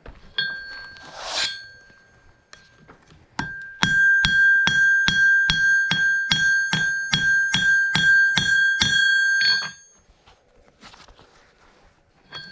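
Hand hammer striking hot steel on an anvil: a single ringing blow, then a steady run of blows at about two and a half a second, each leaving the anvil ringing, stopping at about ten seconds.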